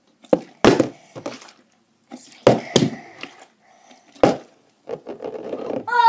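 A partly filled plastic water bottle being flipped and knocking down onto a hard wooden surface: a series of sharp thuds in the first four or five seconds, then a softer rustle near the end.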